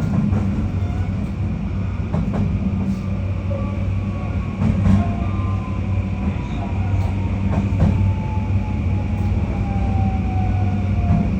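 JR Kyushu 821 series electric train running on the rails with a steady rolling rumble, heard from inside the car, while its traction motor whine falls slowly in pitch as the train slows for a station stop. A few clicks, mostly in close pairs, come from the wheels crossing rail joints.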